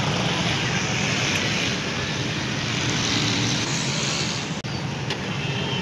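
Steady street traffic noise from a busy road, with the sound dropping out briefly about four and a half seconds in.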